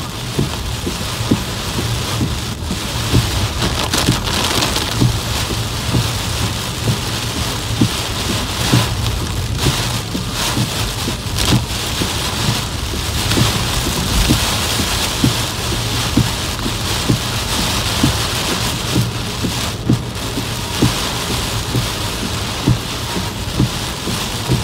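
Heavy rain pelting a car's windshield and roof, heard from inside the car: a steady, dense hiss broken by frequent sharp thuds at an irregular pace.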